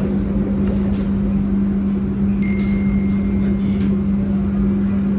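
Steady low mechanical hum and rumble of a train standing at a station. A thin high tone sounds for about a second and a half midway.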